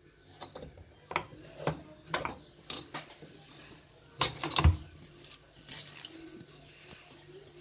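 Boiled rice tipped and shaken out of a metal colander into a cooking pot: irregular knocks and scrapes of the colander against the pot's rim and soft plops of wet rice landing, the loudest knocks about four and a half seconds in.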